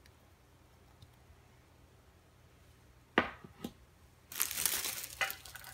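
Tea packaging being handled: two sharp knocks as something is set down, then about a second of packaging crinkling, with another knock near the end.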